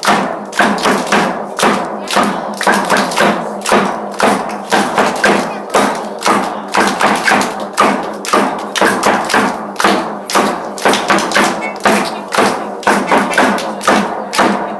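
Percussion struck in a steady beat, about three sharp hits a second.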